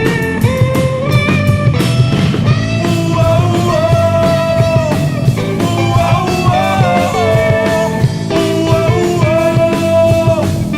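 Live rock band playing an instrumental passage: a lead guitar line with bending, held notes over steady drums and a low bass bed.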